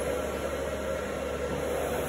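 Steady mechanical whir with a low hum underneath, even throughout.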